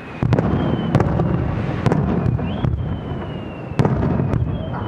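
Aerial fireworks shells bursting: a series of sharp bangs, the loudest near four seconds in, with a continuous low rumble rolling between them.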